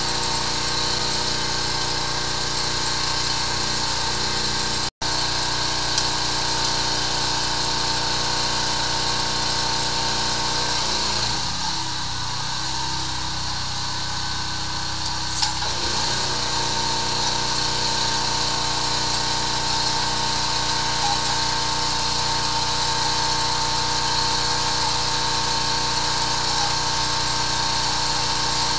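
High-pressure sewer jetter's engine-driven pump running steadily as the nozzle hose is fed down a drain line. It is a constant mechanical hum, with its lower part thinning for a few seconds about halfway through.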